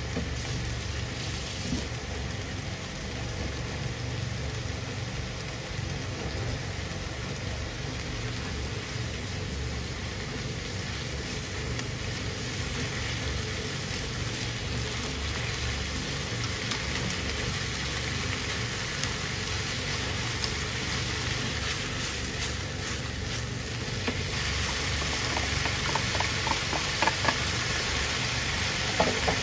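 Udon noodles, onion and tuna sizzling in a non-stick frying pan, over a steady low hum. The sizzle grows louder about three-quarters of the way through, with a few light clicks.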